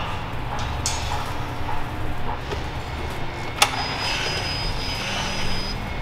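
Steady low mechanical rumble, with a single sharp click a little past halfway and a thin high whine for about two seconds after it.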